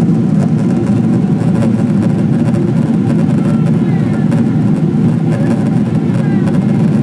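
Steady cabin roar of a Boeing 777-200 in flight, jet engine and airflow noise heard from inside the cabin, deep and unchanging.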